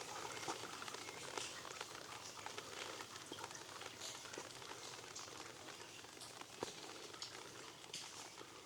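Faint footsteps on a wet stone street, irregular soft clicks over a light hiss of rain.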